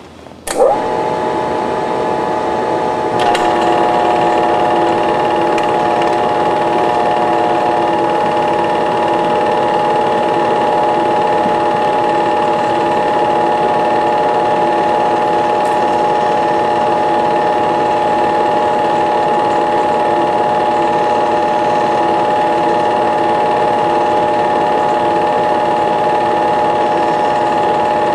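Super 8 film projector starting up with a click and a rising whine, then running steadily, its motor and film transport giving a constant mechanical whine; a second click about three seconds in, after which it runs slightly louder.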